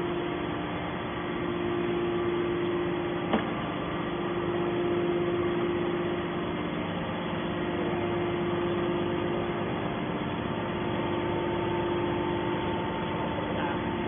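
Hydraulic can baler's motor and pump running with a steady hum, with one sharp click a few seconds in.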